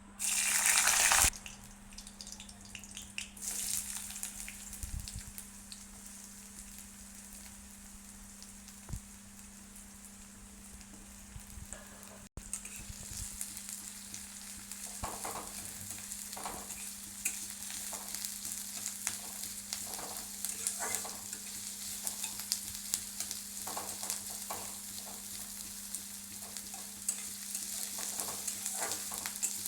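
Food frying in hot oil in a pan: a loud burst of sizzling in the first second, then a steady sizzle that grows louder about halfway through. In the second half it is joined by repeated short scraping strokes of a spoon stirring in the pan, over a steady low hum.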